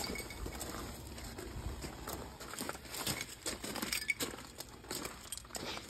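Faint, irregular clicks and rustling, with no steady tone or rhythm.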